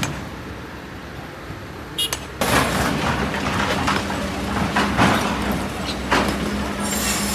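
Kobelco SK200 excavator working in rock and sand: a low rumble, a few clicks, then about two and a half seconds in its engine hum picks up under a dense rattling and crunching of stones and sand, with repeated surges.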